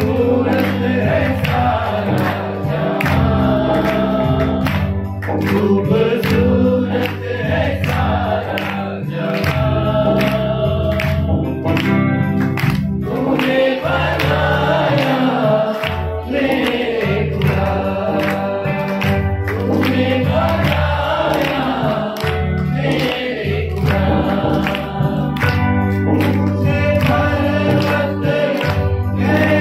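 Men singing a Hindi Christian worship song through microphones, accompanied by a Korg arranger keyboard playing bass, chords and a steady programmed beat.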